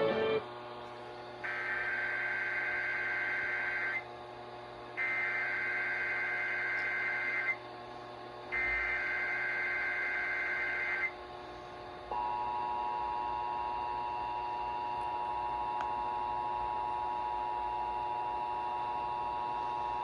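Emergency Alert System Required Weekly Test: three SAME header data bursts, each a harsh digital screech of about two and a half seconds with a short gap between them, followed by the steady two-tone EAS attention signal (853 and 960 Hz) held for about nine seconds.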